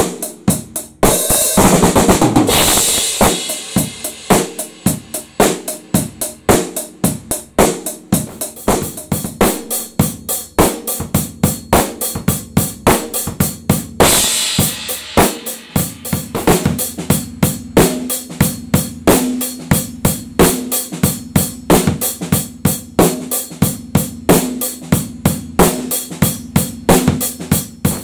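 Acoustic drum kit played in a steady, driving beat of kick and snare strikes under cymbals. A loud cymbal crash rings out about a second in, and another comes about halfway through.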